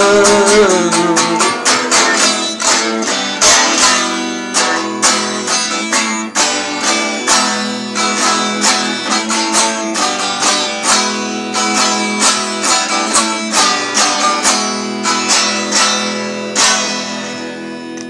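Guitar strummed in a steady rhythm, about two strokes a second, as the outro of a song, slowly fading; a last strum near the end is left to ring out. A sung note slides down and ends about a second in.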